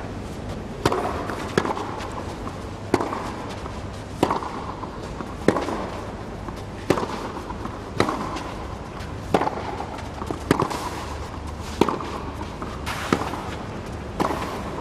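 Tennis serve and baseline rally on a clay court: the ball is struck by racquets about a dozen times, a sharp pop roughly every 1.3 seconds, over a steady crowd hiss. Applause starts to swell right at the end as the point finishes.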